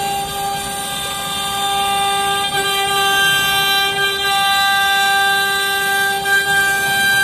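CNC router spindle with its bit cutting a fibreboard cabinet-door panel: a steady high whine over the rushing noise of the cut.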